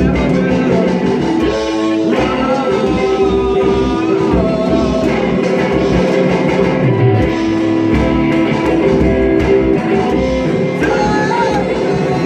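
Rock music played on electric guitars and drums, with a singing voice over it.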